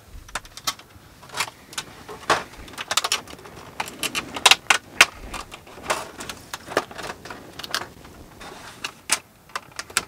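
Tools and hard plastic tool packaging being handled and set down, making a run of irregular clicks, taps and clatter.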